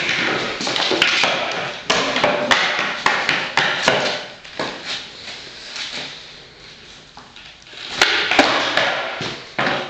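Skateboard on a concrete floor: wheels rolling with a rushing noise, broken by sharp clacks of the deck and tail striking the concrete as tricks are tried. The clacks come thick over the first four seconds, thin out, then come in a cluster again about eight seconds in.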